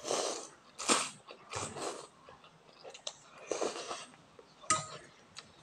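A person slurping chicken noodle soup noodles into the mouth in several short sucking pulls, chewing in between. A single sharp click comes about three-quarters of the way through.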